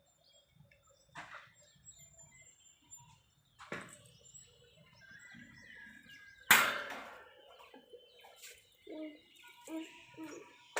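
Pet parrot chirping and giving short calls, with a few sudden sharp sounds, the loudest about two-thirds through, and several short low squawks near the end.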